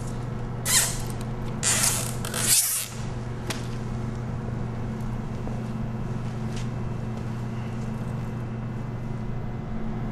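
Rope being pulled tight around a bound man's arm and a wooden chair: three short, quick pulls in the first three seconds, then a faint click. A steady low hum continues underneath.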